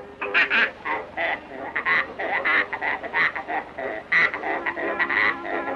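Cartoon sound effect of a sow squeezed like an accordion: a string of short, sharp, pitched notes, about two a second, making up a bouncy tune.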